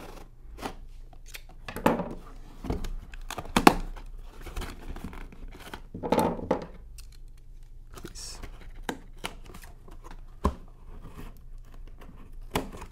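Scissors cutting through packing tape on a cardboard box, with tape ripping and cardboard flaps rustling as the box is opened: irregular snips and scrapes, with a few louder rips.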